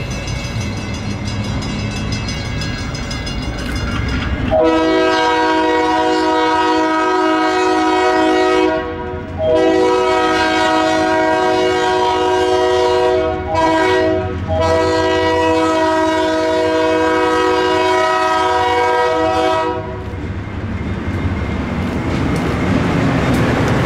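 GE B23-7 diesel locomotive sounding its multi-chime Leslie air horn in the grade-crossing pattern: long, long, short, long, starting about four and a half seconds in and ending about twenty seconds in. Before and after the horn, the locomotive's diesel engine and the train's wheels rumble and clack over the rails.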